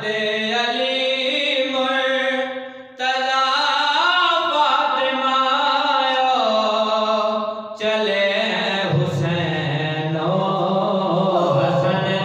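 A man chanting an Urdu devotional qaseeda (manqabat) in long, held melodic lines. Each phrase ends in a break, about three and eight seconds in, and the last phrase sits lower in pitch.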